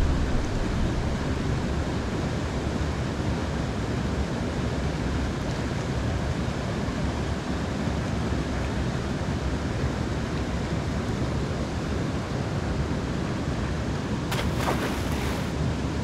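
Steady rush of flowing river water with a short burst of noise near the end.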